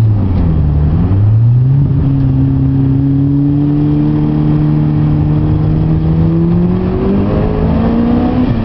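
Mitsubishi Lancer Evolution IV's turbocharged four-cylinder engine heard from inside the cabin as the car is driven hard on track. The revs dip near the start, pick up again within a second, then climb slowly and steadily under acceleration, with a further step up in pitch near the end.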